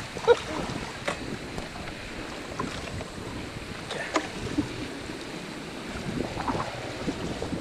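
Wind on the microphone over the steady wash of seawater around an anchored sailboat's hull, with a couple of faint clicks.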